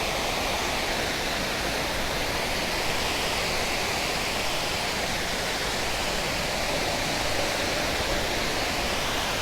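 Water pouring over a creek spillway: a steady, even rushing.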